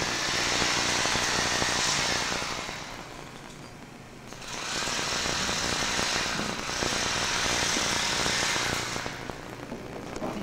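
A power tool running in three long bursts of harsh, hissing noise, the first about three seconds long and then two of about two seconds each, close together, during demolition work on a stage wall.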